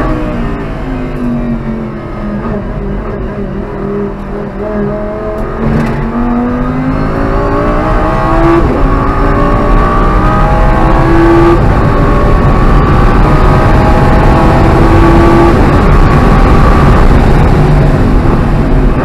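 Audi R8's 5.2-litre V10 heard from inside the cabin under track driving. Over the first few seconds it runs down in pitch while the car slows, then it accelerates hard, the pitch climbing again and again through several upshifts and getting louder.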